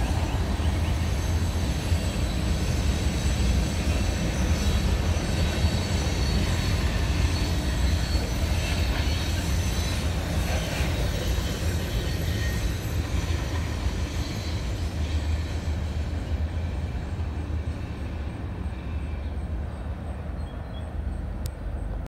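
Manifest freight train's cars rolling past on the rails, a steady rumble of wheels that slowly fades over the last several seconds.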